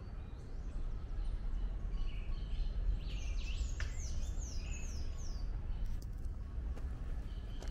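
Songbirds chirping in a garden, with a run of about six quick falling notes in the middle, over steady low background noise.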